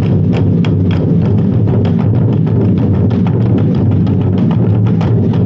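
A Twenty-Four Festive Drums troupe beating large barrel drums with sticks in unison: a loud, dense run of rapid, driving strokes that never pauses.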